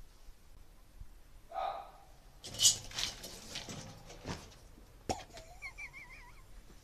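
A short pitched cry, then a loud clatter and rattling from cats scrambling on a metal balcony railing, followed by two sharp knocks and a faint wavering whistle.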